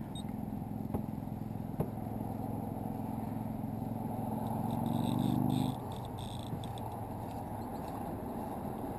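Electric trolling motor on a small fishing boat humming steadily, growing louder and then cutting off suddenly about six seconds in. A low steady rushing noise continues underneath, with two light clicks early on.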